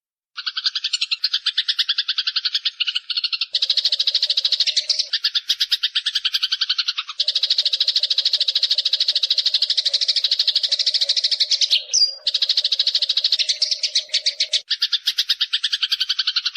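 Eurasian tree sparrow chattering: a fast, unbroken run of short, repeated chirps, with a brief dip about seven seconds in and one sharper squeak about twelve seconds in.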